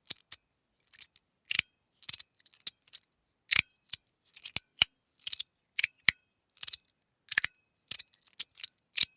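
Xia Mu x2 titanium tuning-fork fidget slider being slid back and forth: about a dozen short, sharp scrape-and-click strokes at an uneven pace, each slide of the finely textured plates ending in a snap, some with a faint tuning-fork ring after.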